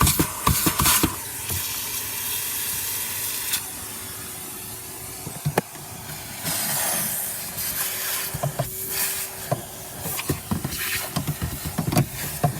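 Vacuum cleaner running with rushing air and a steady whine, its nozzle knocking and clicking against the car's interior as it cleans.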